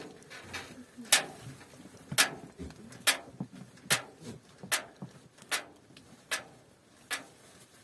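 Repeated sharp knocks of a tool striking, about one every 0.8 seconds, evenly paced.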